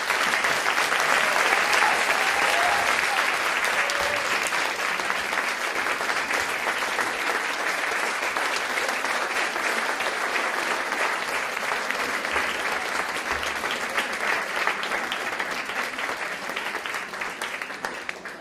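Audience applauding at the close of a speech: dense clapping that starts at full strength and slowly thins and dies away near the end.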